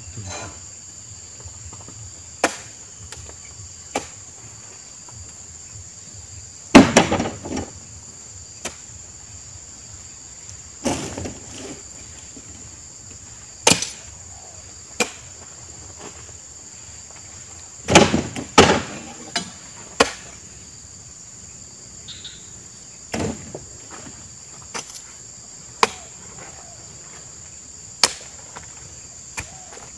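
Oil palm fresh fruit bunches being loaded onto a truck with a hook spike: about a dozen irregular knocks and heavy thuds, the loudest about 7 and 18 seconds in, as bunches are speared and dropped into the truck bed. A steady high insect drone runs underneath.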